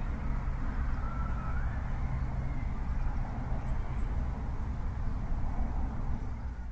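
Steady low rumble of street traffic, with a faint short rising whine about a second in.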